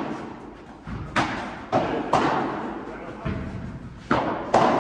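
Padel rally: a series of about six sharp knocks of the ball off solid padel rackets and the court's glass walls, each echoing in a large hall.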